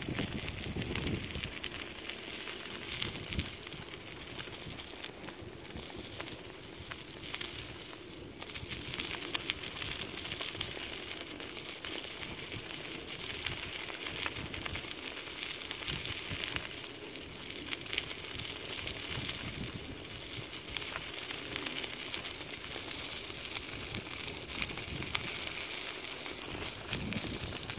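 Dog scooter's wheels rolling over a gravel track: a steady gritty noise full of tiny clicks, with a louder low rumble in the first second or so.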